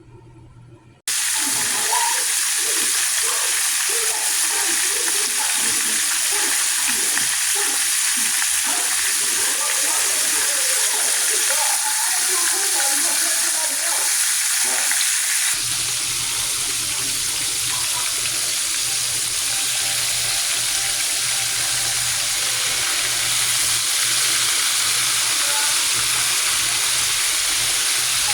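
Floured pork steaks frying in hot grease in a skillet: a loud, steady sizzle that starts about a second in and keeps on evenly.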